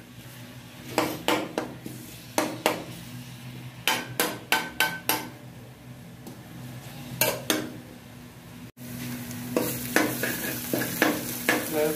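Metal spoon scraping and stirring chopped onions and garlic frying in oil in an aluminium pan, in a series of short scrapes. A light sizzle grows louder after about nine seconds as the onions brown.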